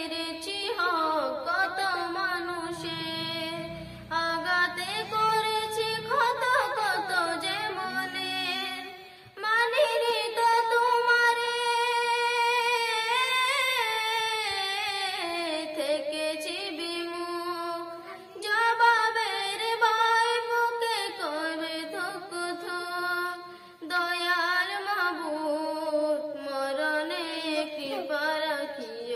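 A young girl's solo voice singing a Bengali Islamic song (gojol) into a microphone. Her phrases have long held, ornamented notes, with short breaths between them.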